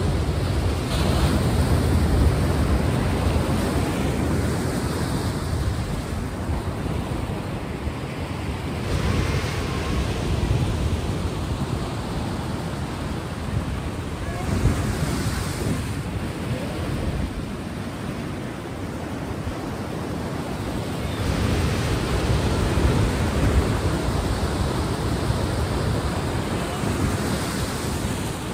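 Ocean surf: waves breaking and washing in, the noise swelling and easing in slow surges every several seconds.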